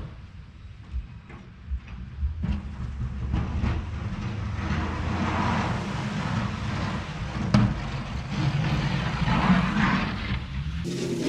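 A vehicle engine running steadily, with swells of scraping noise and a few sharp knocks over it.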